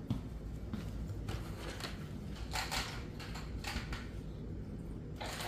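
Scattered light clicks and knocks over a low steady hum, then near the end a battery-powered dancing crab toy switches on and its motor mechanism starts running.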